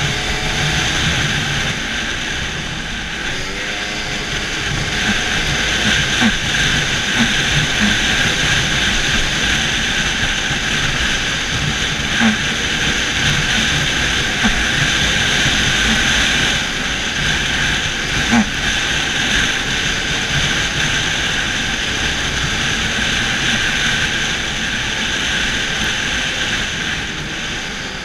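Arctic Cat snowmobile running steadily at trail speed, engine and track noise mixed with wind rush. The engine note dips and rises briefly a few seconds in. A few sharp knocks stand out over the steady noise.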